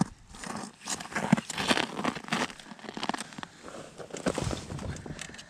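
Irregular crunching and rustling close by: boots stepping on snow-covered ice and a winter jacket rubbing as the fish is handled.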